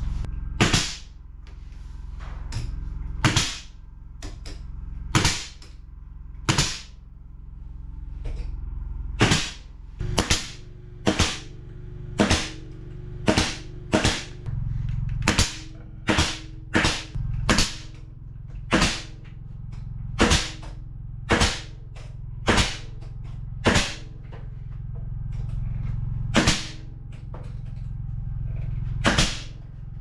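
Pneumatic nail gun driving nails into wooden 1x4 trim boards: about two dozen sharp shots at uneven spacing, often two or three in quick succession, over a low steady hum.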